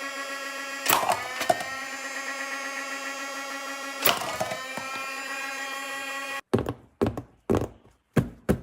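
A steady sustained musical chord, struck twice, stops suddenly about six and a half seconds in. Five or six sharp, separate knocks follow, with silence between them.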